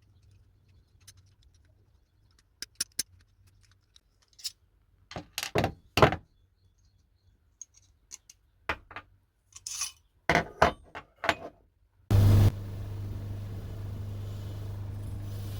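Metal hand tools and small steel parts clinking and knocking in a series of sharp, uneven clicks. About twelve seconds in, an electric power tool starts up suddenly and runs steadily with a low hum.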